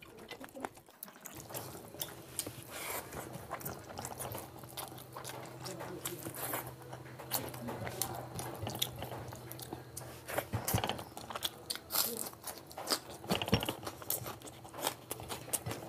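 Close-miked eating sounds: a person chewing and biting curry and rice eaten by hand, with many irregular wet clicks and smacks from the mouth and fingers.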